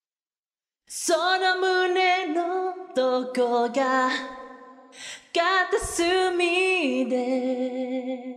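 A single voice singing a Japanese pop ballad unaccompanied, with vibrato on the held notes. It comes in about a second in and breaks briefly just before the fifth second.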